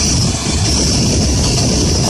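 Electric drill running steadily, boring a hole through the glued end of a van's door handle.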